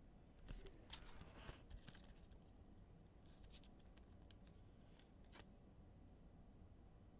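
Faint rustling and a few soft clicks of trading cards being handled and slid through the hand as a pack is sorted, with a cluster of brief rustles early and scattered snaps later.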